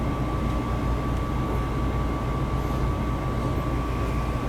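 High-efficiency gas furnace running: a steady low rumble with a thin, constant tone above it.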